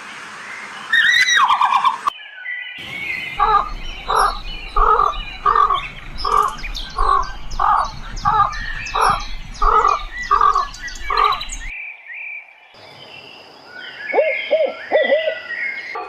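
Bird calls in several spliced snippets. The longest is a steady series of about a dozen evenly spaced pitched notes, roughly one and a half a second, with higher chirping over it. Shorter bursts of calls come near the start and near the end.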